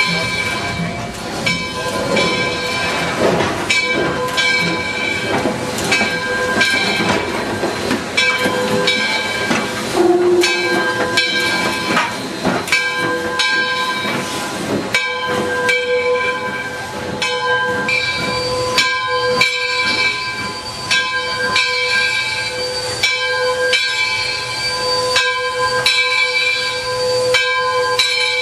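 Steam locomotive at close range hissing steam, with a ringing tone struck again about once a second.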